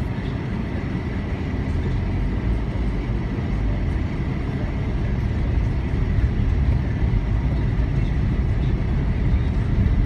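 Steady low rumble of a car's engine and tyres heard from inside the cabin as it moves slowly through traffic, a little louder from about six seconds in.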